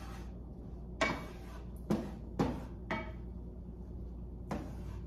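Kitchen cookware knocking and clinking: about five separate sharp knocks with short ringing tails, spread over a few seconds, over a steady low hum.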